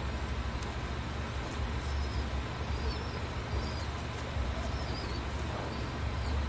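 Steady outdoor background rumble, low and even, with a few faint high chirps now and then.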